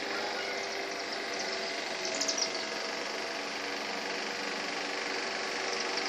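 High, short chittering calls from the small flyers circling overhead, which are taken for bats, with a brief burst about two seconds in. A steady machine-like hum runs underneath.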